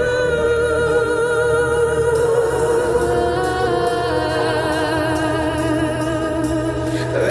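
AI-generated dark-toned song: a voice holds long wordless notes with vibrato, stepping to new pitches a few times, over a steady low bass. Near the end the held note slides down.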